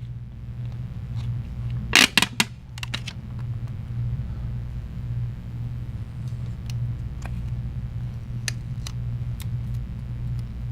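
Small sharp clicks and taps of a phone's replacement screen and plastic parts being handled and set in place: a loud cluster about two seconds in, a few more just after, then scattered lighter ticks. A steady low hum lies under it all.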